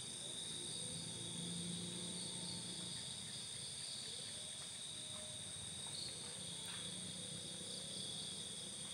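Night chorus of crickets and other insects trilling steadily in a forest, a continuous high-pitched drone.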